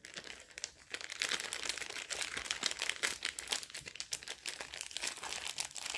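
Small clear plastic zip-lock bag crinkling as it is handled and pulled open, a dense, continuous run of small crackles.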